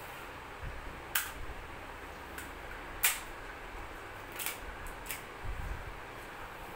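Plastic toy train track pieces clicking as they are handled and fitted together on a tiled floor: four sharp clicks spread over a few seconds, the loudest about three seconds in.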